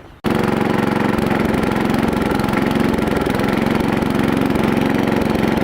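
Small Craftsman riding-mower engine running steadily, exhausting through a homemade spray-can pipe. It cuts in suddenly just after the start.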